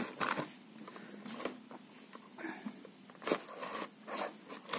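A knife blade scraping and cutting along the sealed edge of a small cardboard box, in a series of short, irregular scratches and crackles of the packaging.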